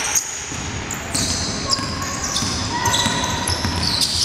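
Basketball shoes squeaking on a hardwood gym floor, a run of short high squeals, over the thuds of a basketball being dribbled and players moving on the court.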